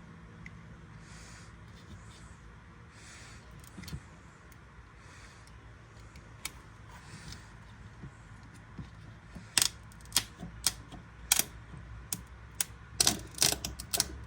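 A run of sharp metallic clicks and clinks, tools and parts being handled during the repair, sparse at first and coming thick and fast over the last third, over a faint low hum.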